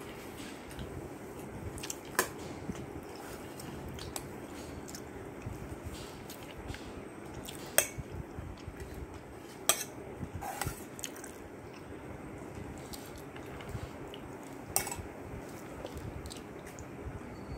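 A person eating rice and curry by hand: soft squishing and chewing, with a handful of sharp clicks of fingers, plate or glass on the table, over a steady low hum.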